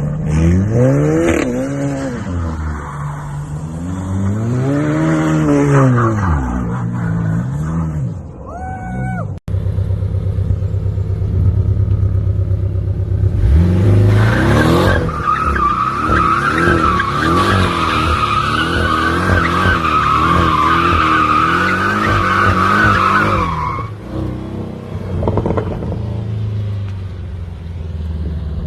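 Porsche sports car engine revved up and down several times. After a cut, an engine held at high revs with a long, steady tyre squeal of about nine seconds, as in a drift or burnout.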